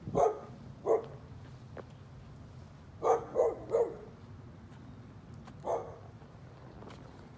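A dog barking in short, sharp barks: two at the start, then a quick run of three, then one more.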